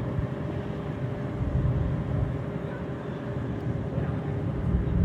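Jet airliner engines running: a steady low rumble with a constant whine held through it.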